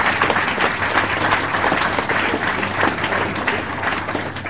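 Audience applauding: a dense clatter of many hands clapping that eases off near the end.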